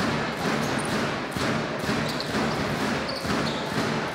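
A basketball being dribbled on a hardwood court, about two bounces a second, over the steady noise of the crowd in the hall.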